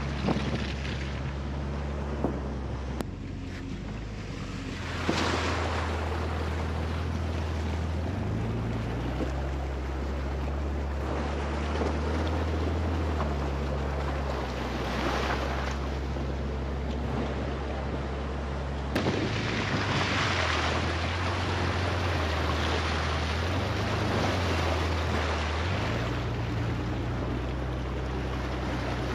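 Jeep Cherokee XJ engine running at crawling speed while its tires splash and churn through a shallow, rocky river crossing; the engine note steps up and down several times, and the water splashing swells and eases. Wind buffets the microphone.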